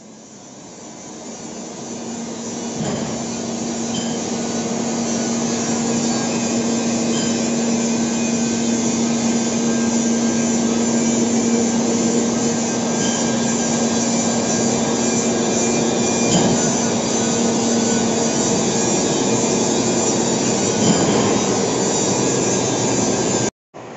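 Heavy lathe turning a large steel roll with a single-point tool cutting metal: a steady machine hum under a rough cutting hiss. It builds up over the first few seconds, holds steady, and cuts off suddenly near the end.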